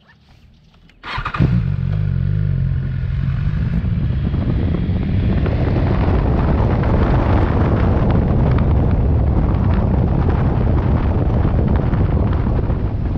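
Motorcycle engine starting suddenly about a second in, then running with a steady tone before the bike rides off and wind noise builds over the engine.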